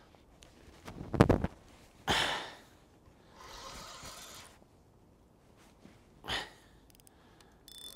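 A few short breathy bursts and rustles from an angler playing a hooked pike on the rod, the loudest about a second in and another just after six seconds.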